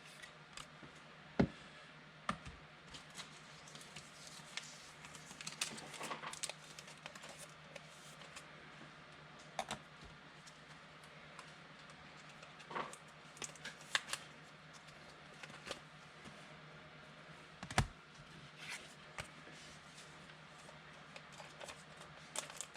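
Scattered light clicks and taps at uneven intervals, a few sharper than the rest, over a faint steady low hum.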